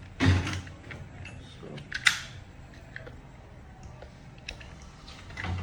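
Plastic parts of a washing machine's control panel being handled as it is taken apart: a knock just after the start, then a sharp click about two seconds in, with a few fainter ticks.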